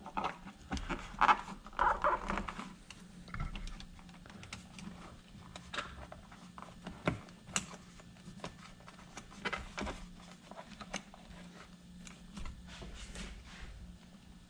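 Handling noise: scattered small clicks, taps and rustles of hands pushing wires down and seating the electric skateboard's electronics enclosure onto the deck, with a few sharper knocks.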